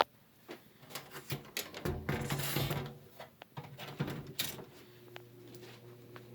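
Knocks and clicks of the metal box fan being handled and switched. About five seconds in, the 1983 JCPenney 20-inch box fan's wing-tip motor starts with a steady hum that slowly grows louder as the blades spin up.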